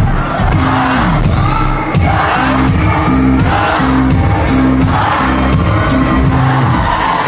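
Live rock band playing loudly with a steady bass line, lead singing and the crowd's voices mixed in.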